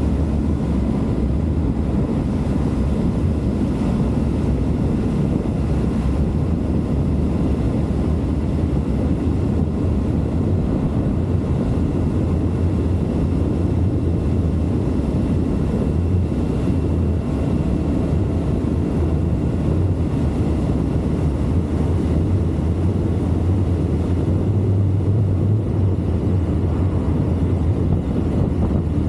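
Triumph Tiger motorcycle under way at a steady pace: engine running under a dense low rumble of wind and road noise, with a steady low hum.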